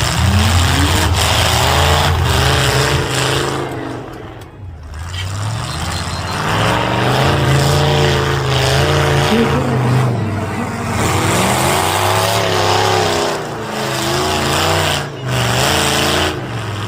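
Demolition derby car engines revving hard, the pitch rising and falling again and again, with a brief lull about four seconds in.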